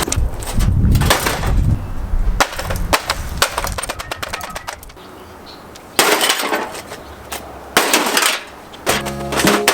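Repeated blows from a hand tool striking a microwave oven's metal body. A quick run of knocks fills the first couple of seconds, and separate heavy hits land about six and eight seconds in. Music with steady notes comes in near the end.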